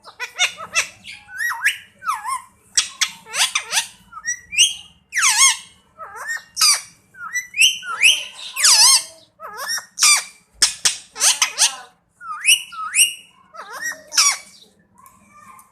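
Pet Indian parrot giving a rapid series of short, shrill squawks and chirps, several a second, with a brief pause near the end.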